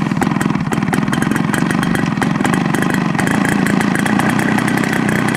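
Large RC aerobatic airplane's engine running steadily with its propeller spinning, a fast, even firing that holds one speed.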